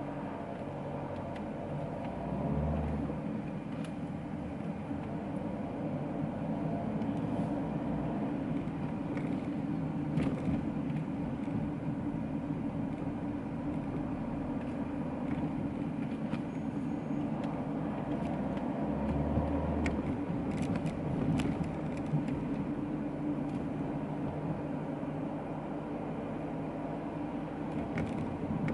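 Interior sound of a 2011 Opel Insignia 2.0 CDTI four-cylinder turbodiesel driving in stop-and-go city traffic: steady engine and road noise, with a low engine hum that swells briefly twice.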